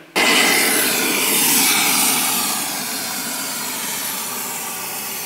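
Aerosol can of Dynax S-50 cavity wax spraying through a long thin extension tube: a continuous hiss that starts abruptly and holds steady, easing slightly after a couple of seconds.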